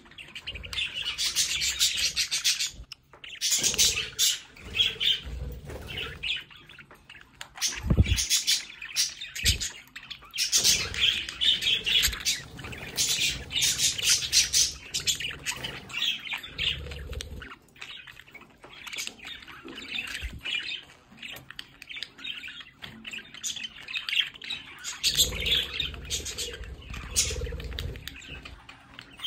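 A group of budgerigars chattering and warbling together in bouts, with quick high chirps and squawks overlapping. A low thump about eight seconds in.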